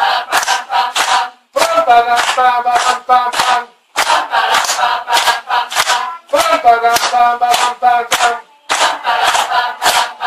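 A group chanting rhythmic phrases together in unison, with hand claps marking the beat. The phrases last about two seconds each, with short pauses between them.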